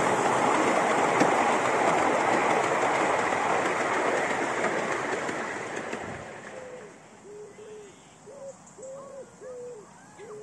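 Miniature railway train carriages rolling past on the track, a steady rattling rush that fades away over about six seconds as the train draws off. After that a bird coos in a run of short hooting notes.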